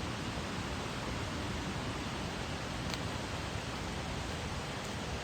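Steady rushing noise of a flooded, fast-running river.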